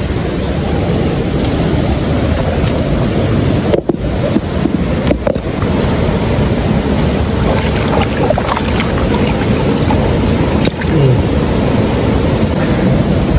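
Loud, steady rush of a mountain river pouring over and between boulders, heard close up.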